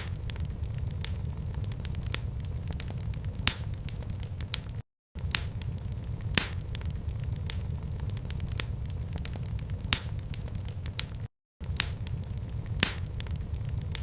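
Wood fire in a fireplace crackling, with scattered sharp pops over a steady low rumble. The sound cuts out completely for a split second twice, about five and eleven seconds in.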